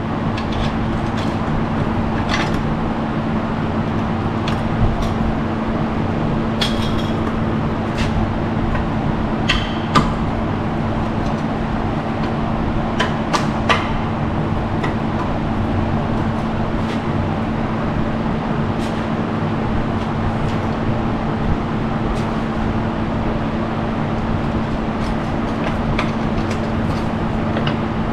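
Handheld plasma cutter cutting through the rusted steel frame around the old skid-plate bolts: a loud, steady hiss with a constant hum underneath and occasional sharp crackles.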